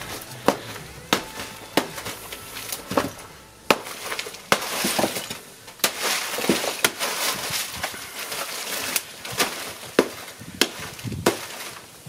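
Hammer blows smashing a plaster-and-cardboard model building into rubble: a dozen or so sharp, irregular strikes, about one a second, with pieces crumbling and rattling onto the concrete floor between them.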